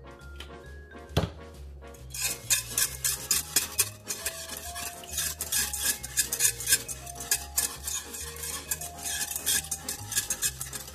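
Wire whisk stirring sauce in a ceramic-lined saucepan: rapid clinking and scraping of the wires against the pan, starting about two seconds in after a single knock. Background music plays throughout.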